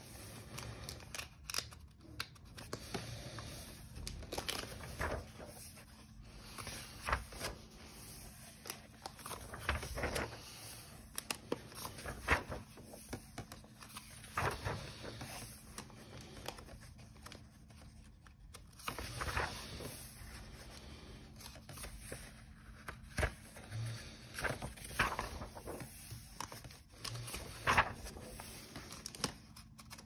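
Pages of a paperback colouring book being turned one after another, each turn a short papery swish and rustle, with a hand brushing over the paper between turns.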